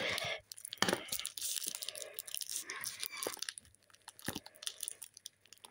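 Crinkling, crackling and tearing of tissue paper and sticky tape as hands peel the wrapping off an egg, busiest in the first few seconds, then thinning to scattered crackles.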